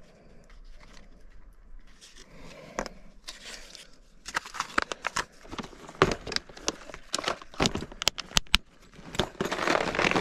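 Handling of fishing tackle: a plastic blister pack rustling and crinkling, then a run of sharp plastic clicks and knocks as a clear plastic tackle tray is handled and packed into a soft tackle bag, with heavier rustling near the end.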